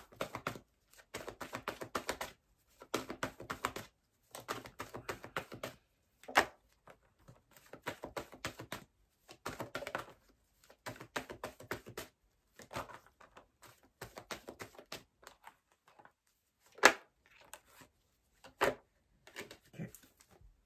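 A deck of oracle cards being shuffled by hand: bursts of rapid card flicking, each about a second long, with short pauses between, and two sharper taps, one about six seconds in and one near seventeen seconds.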